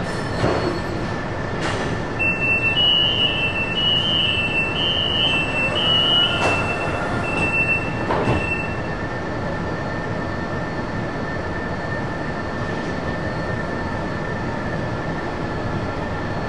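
A Fuzhou Metro Line 4 train stands at a station with its equipment humming steadily, while an alternating two-tone door-closing warning beeps for about seven seconds. A few sharp knocks come as the doors shut. After the beeping stops the hum carries on alone.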